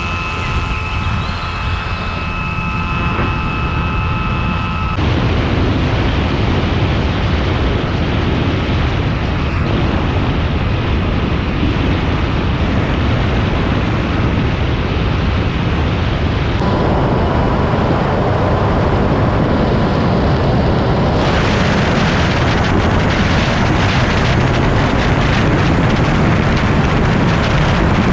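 Airflow rushing and buffeting over the onboard camera microphone of a Skywalker FPV plane in flight, with a steady whine from its electric motor in the first few seconds. About five seconds in the wind noise jumps suddenly and stays loud, swelling again past the twenty-second mark as the plane descends toward the lake.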